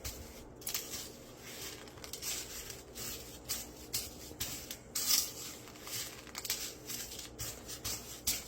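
Panko breadcrumbs crunching and rustling as egg-washed chicken is pressed and turned in them by hand, in irregular short strokes, loudest about five seconds in.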